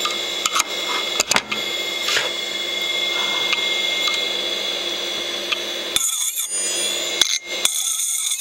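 Open old 8 GB hard drive running with a steady high whine and a few sharp clicks. About six seconds in, a metal tool tip is pressed onto the spinning platter and scrapes it with a harsh, high screech, lifts off for a moment, then scrapes again, scoring the disc surface.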